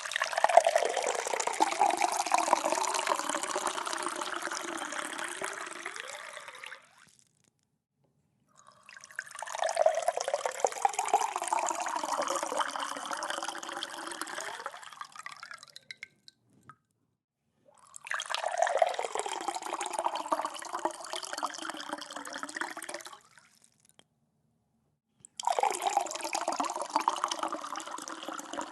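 Liquid poured into a glass cup, four separate pours each lasting several seconds, with short silent pauses between them; the last pour is cut off at the end.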